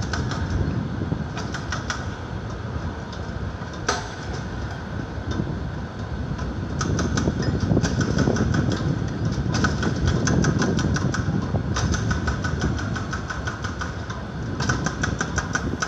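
Traffic at a busy city intersection: a steady rumble of cars and scooters that swells in the middle, with several bursts of rapid clicking or rattling over it.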